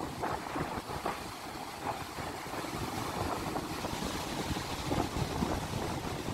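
Steady rush and roar of floodwater pouring through a dam's open spillway gates, the gates raised to release floodwater downstream.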